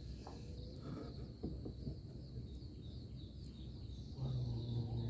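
Faint outdoor ambience over open water: a steady high-pitched chirring with small chirps over a low rumble, and a low hum that comes in about four seconds in.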